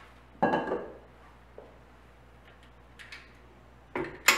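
Metal clanks and clicks from handling a stand mixer: the stainless-steel mixing bowl is set down on the counter with a short ringing clank about half a second in, a few light ticks follow, then two sharp metallic clicks near the end as the KitchenAid mixer's tilt head is worked.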